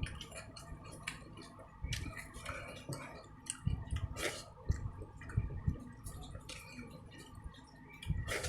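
Eating sounds: a person chewing a meal of fish and rice, with wet smacking and irregular small clicks of the mouth.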